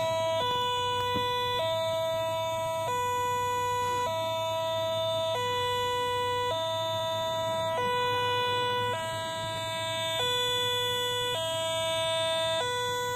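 Toy railway level-crossing signal sounding its electronic warning alarm: a low and a high tone alternating steadily, each held about a second.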